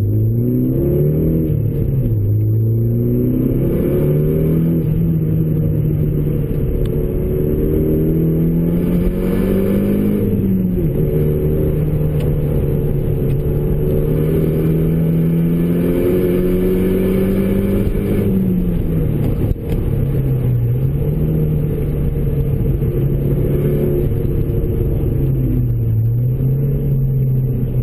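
Renault Megane RS's turbocharged four-cylinder engine through a K-Tec Racing 70 mm full exhaust, heard from inside the cabin while driving. The engine note rises and falls with throttle and gear changes: it climbs at the start, holds steady, rises again about ten seconds in, then drops, with a short lift-off just before twenty seconds in.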